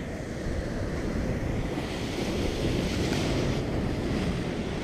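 Ocean surf washing steadily, with wind buffeting the microphone; the wash swells louder for a couple of seconds in the middle.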